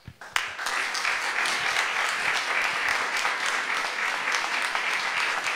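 Audience applause: a few first claps, then within half a second a whole room clapping steadily.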